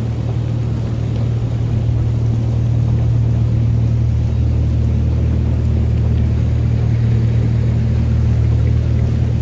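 C.P. Huntington replica miniature train running past, its engine giving a steady low drone that swells slightly toward the end.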